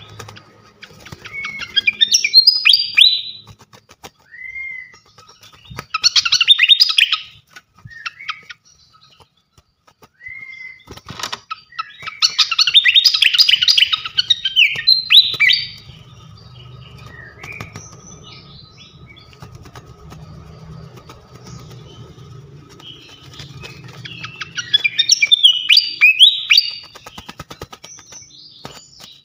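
Srikatan kipas songbird singing: four loud bursts of rapid, tumbling twitters a few seconds apart, with short single whistled notes between them. A faint steady high tone and low hum run underneath.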